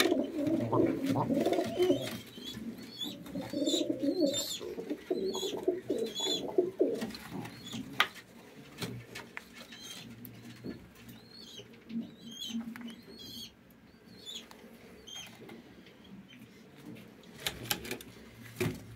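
Domestic pigeons cooing for the first several seconds, with short high squeaks repeating throughout.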